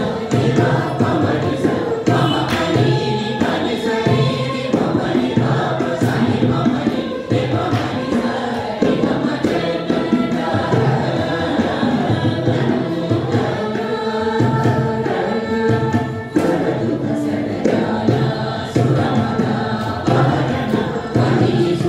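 A group of men and women singing a Carnatic song together, accompanied by violin and mridangam, with the drum strokes running steadily under the voices.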